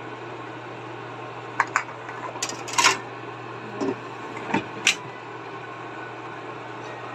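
Handling of a metal pan and air fryer basket: a series of short clicks and knocks about one and a half to five seconds in, the loudest a scraping clatter about three seconds in, over a steady low hum.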